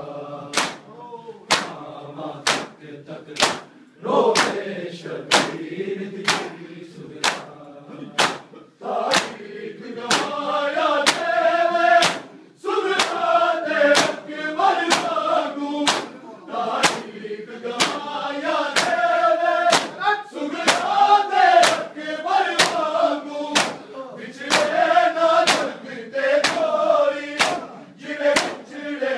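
A crowd of men beating their chests in unison with open hands in matam, sharp slaps about three every two seconds, while the group chants a noha, a Shia lament, in time with the beats. The chanting grows stronger about ten seconds in.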